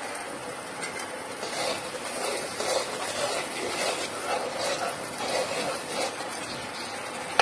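Spice paste thinned with water sizzling and simmering in a frying pan: a steady hiss. A metal spoon stirs it, scraping against the pan now and then.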